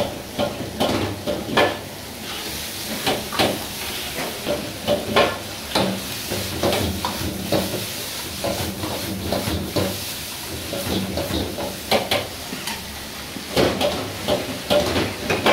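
Metal ladle scraping and knocking against a wok in quick, irregular strokes while chicken and vegetables sizzle in hot oil as they are stir-fried.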